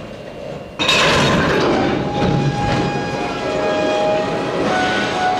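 Freight cars rolling slowly past on steel wheels. A sudden loud clatter comes about a second in, then the wheels squeal against the rail in several thin, high tones that come and go.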